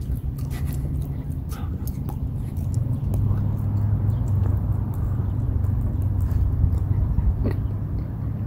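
Outdoor ambience: a steady low rumble, a little louder from about three seconds in, with scattered light clicks.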